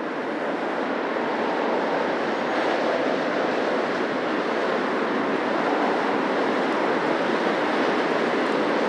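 Busy city street traffic: a steady wash of cars passing close by, tyre and engine noise blending together and swelling slightly in the first couple of seconds.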